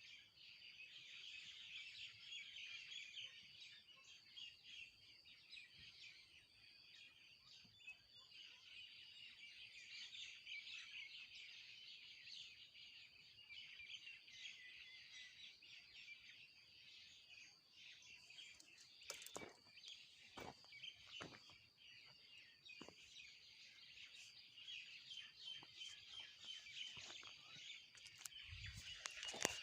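Faint, dense chorus of many small birds chirping continuously, with a few sharp clicks past the middle.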